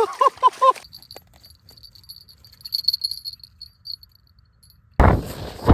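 Small bite-alarm bell on a set ice-fishing rod jingling irregularly in thin, high rings for about four seconds, the signal that a pike has taken the bait. A sudden loud noisy rush cuts in about five seconds in.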